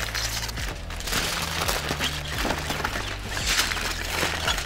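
Aluminium foil crinkling and rustling as it is folded and crimped around a brisket, in swells a second or so apart, over background music with a low, steady bass line.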